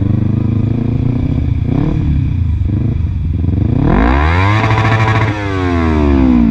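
Kawasaki Ninja 250R's parallel-twin engine through a 30 cm WR Authentic carbon-fibre exhaust, idling, then revved once about four seconds in, held briefly and falling back toward idle.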